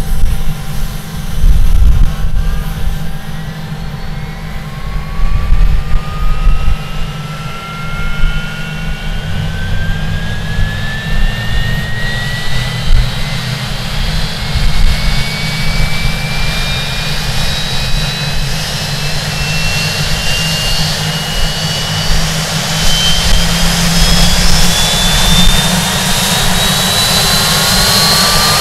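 Rolls-Royce Spey turbofan of a Hawker Siddeley Nimrod MR2 spooling up, heard close to its intake: a steady low rumble under a high-pitched whine that climbs slowly and gets louder.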